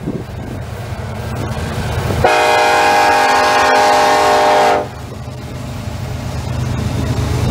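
Diesel freight locomotive's air horn sounding one long blast of several notes at once, starting about two seconds in and lasting about two and a half seconds, over the steady low rumble of the locomotive and train passing through the crossing.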